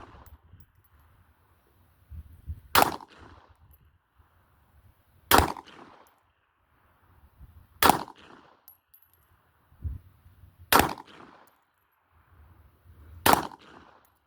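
Five gunshots fired at an even, unhurried pace, about one every two and a half seconds, each a sharp crack with a short echo trailing off. A dull low thud comes between the fourth and fifth shots.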